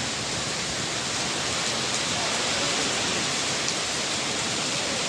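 Heavy rain pouring down steadily, a dense even hiss with a few faint ticks of drops landing close by.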